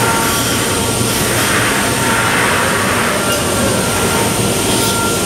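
C.R. Onsrud five-axis CNC router spindle running at speed while its bit carves a bust from a pink block: a steady, loud machining noise with a thin high spindle whine, the cutting growing harsher for a stretch midway.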